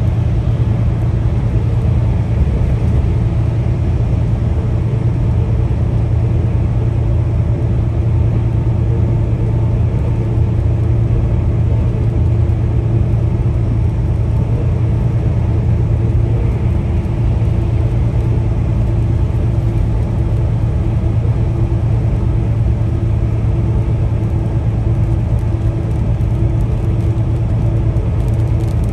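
Peterbilt 579 semi truck going steadily down the road: a low, even engine drone with a steady hiss of road noise over it.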